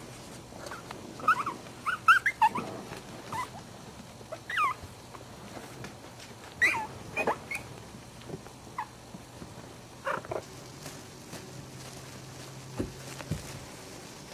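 Maltese puppies giving short, high-pitched squeaks and yips in scattered clusters while they wrestle in play.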